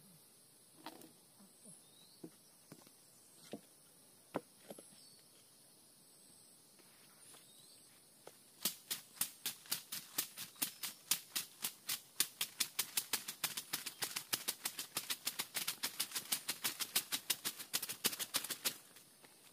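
A leafy branch swept fast over a freshly sawn ulin ironwood beam, brushing off sawdust in quick swishing strokes, about six a second, starting about eight seconds in and stopping shortly before the end. Before that, a few scattered knocks as the timber is handled.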